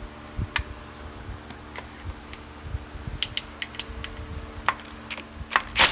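Scattered short metallic clicks of a socket wrench turning out an oil pan bolt, with a louder burst of rapid clicking near the end, over a steady low hum.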